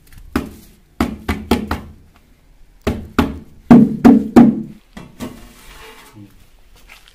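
Hollow knocks and thumps of an upturned plastic bucket being worked against a large aluminium cooking pot, about a dozen in uneven clusters, loudest a little under four seconds in. The knocks end a little after five seconds.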